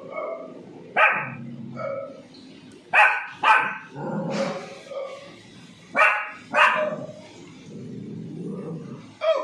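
White Pomeranian puppy barking: about six sharp, high barks, mostly in quick pairs about half a second apart, with pauses of a couple of seconds between pairs.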